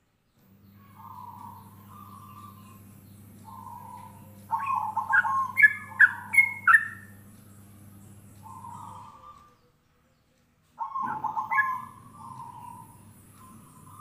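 A trucukan (yellow-vented bulbul) and a zebra dove calling to each other: the dove's soft, rolling coos repeat throughout, and the bulbul's loud, bubbly whistled phrases break in about four seconds in and again near the end. A low steady hum runs under the first part.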